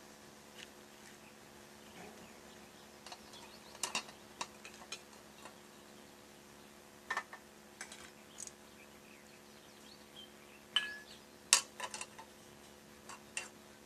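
Scattered light clicks and clinks at irregular intervals, a few sharper ones near the middle and end, over a faint steady hum.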